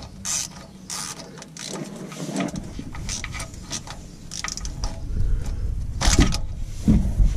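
A 3/8-inch socket ratchet clicking in irregular runs as it is worked back and forth on an extension and a claw-type oil filter wrench, trying to break the oil filter loose. Heavier knocks come in near the end.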